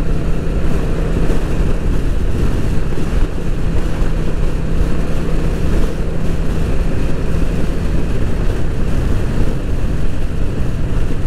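Yamaha V-Star 650's air-cooled V-twin with ACS aftermarket sport exhaust running steadily at highway cruising speed, a deep exhaust note mixed with wind rushing over the microphone.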